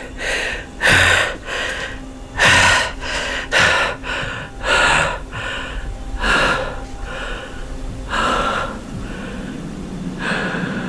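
A man breathing hard in a series of loud gasps, one every second or so, over a low steady hum.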